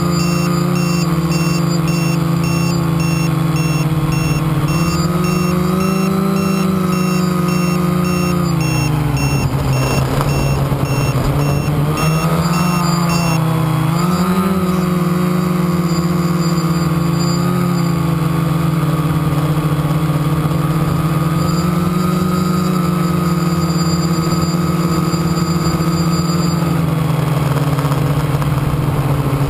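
Quadcopter drone's electric motors and propellers humming in flight, the pitch rising and falling as the throttle changes, with a clear dip about nine seconds in and again around thirteen seconds.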